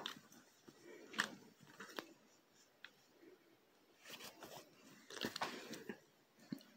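Golden retriever mouthing and nipping at close range: faint, scattered short mouth and rustling sounds that come in a few irregular clusters.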